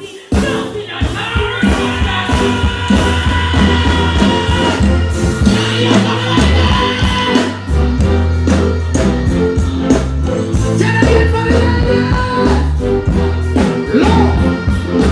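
Live band music played loud through a stage sound system, with heavy bass, drums and a singer's voice over it. It cuts in suddenly just after the start.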